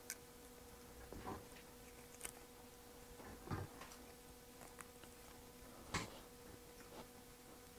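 Faint, scattered metallic clicks and knocks, about five spaced a second or more apart, as hog ring pliers clinch hog rings onto a car seat's spring frame, over a faint steady hum.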